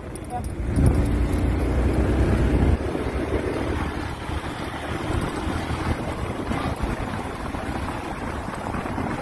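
Wind buffeting the microphone of a motorcycle riding a rough dirt track, over the bike's engine and tyres. The heavy low rumble eases a little about three seconds in.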